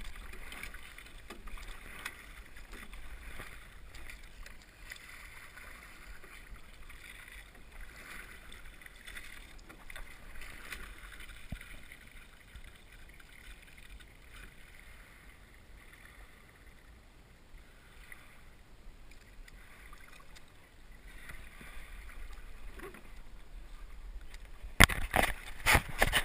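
Water swishing and rippling against the hull and oar blades of a Bay 21 sculling shell being rowed on calm water, swelling every two to three seconds. Near the end there are loud knocks and rubbing from a hand handling the camera.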